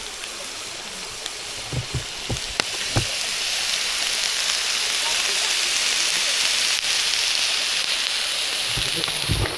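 Food frying in a pan over a wood fire: a steady sizzle that swells about three seconds in and holds, with a few light knocks of utensils early on.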